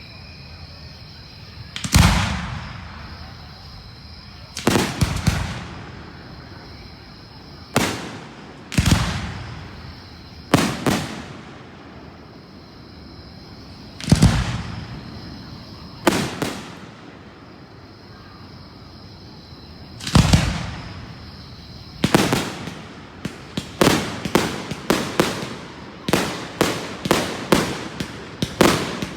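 Fireworks shells bursting in single booms a few seconds apart, each fading out over a second or so. From about two-thirds of the way in, a quick run of bursts follows several a second. A steady high-pitched drone runs underneath.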